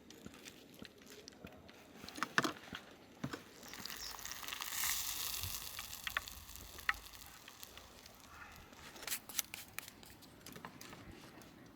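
Camp cooking handling sounds: scattered clicks and taps of utensils and food being worked, with a soft hiss that swells for a couple of seconds near the middle.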